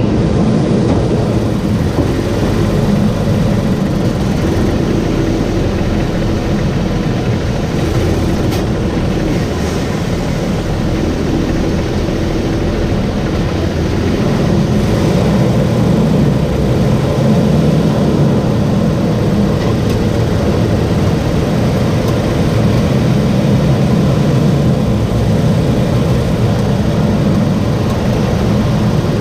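2022 Toyota Tacoma running, a steady low-pitched vehicle noise with no clear breaks.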